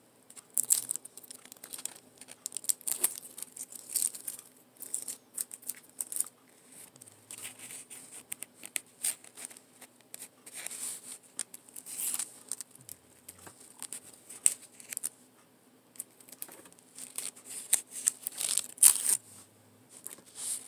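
Tape being peeled off a rolled diamond painting canvas, in short, irregular rips, with the canvas's plastic cover film crinkling as it is handled.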